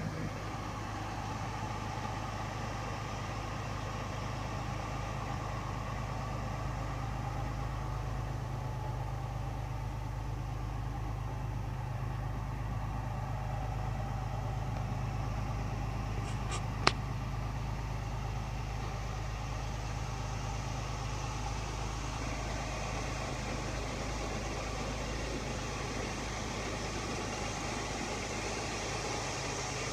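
1951 Chevrolet 3100 pickup's engine idling steadily, with one sharp click about seventeen seconds in.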